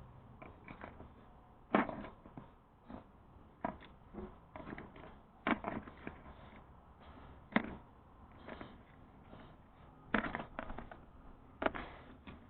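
Irregular sharp clicks and knocks, the louder ones a second or two apart, with smaller taps and rustling between: hand tools and small parts being handled while the 7A-FE intake manifold valve is worked on.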